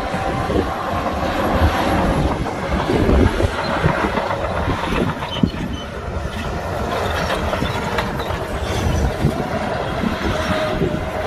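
Heavy earthmoving machinery working: diesel engines running with continuous rattling and clanking.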